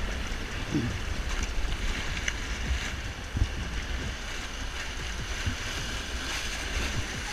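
Rushing river whitewater as an inflatable raft runs into class III rapids, with water splashing against the bow and wind buffeting the microphone in irregular low thumps.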